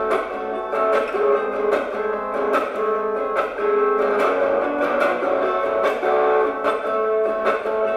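Guitar strummed through a small belt-clipped pocket amplifier: a steady rhythmic chord pattern of about two strokes a second, thin and with no deep bass.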